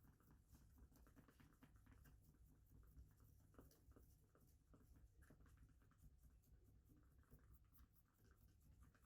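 Near silence, with faint, irregular light scratching and ticking.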